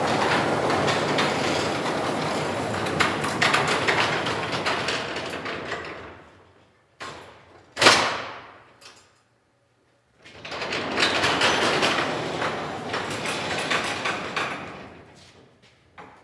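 Overhead crane trolley rolling along a steel I-beam ceiling track with a chain hoist, a steady rumble that fades out, a single sharp clank about eight seconds in, then the rolling rumble again, fading near the end.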